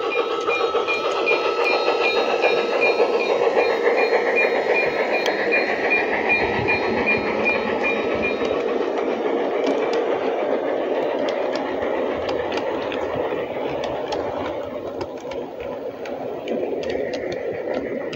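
LGB G-scale model steam locomotive and coaches running past on garden railway track: a steady rolling rumble and motor hum, with a regular light ticking for the first half and sharp clicks of wheels over rail joints and points as the coaches go by, fading a little near the end.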